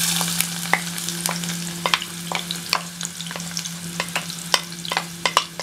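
Chopped onion dropped into hot oil in a clay cazuela and frying: a burst of sizzle as it goes in, then steady sizzling with many sharp crackles and pops, while a wooden spoon scrapes the onion from an earthenware bowl.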